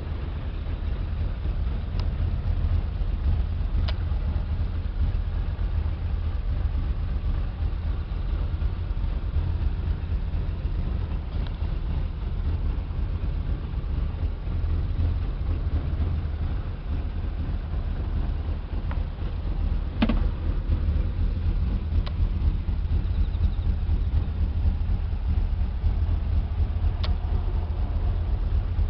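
Daihatsu Hijet kei truck's engine idling, a steady low rumble heard from inside the cab, with a few light clicks and one louder knock about two-thirds of the way through.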